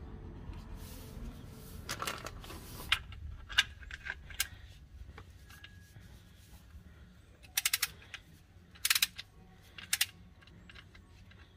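Socket ratchet wrench tightening the oil drain plug on a Ford EcoSport's oil pan: scattered metallic clicks, then several short runs of rapid ratchet clicking in the second half, one per swing of the handle.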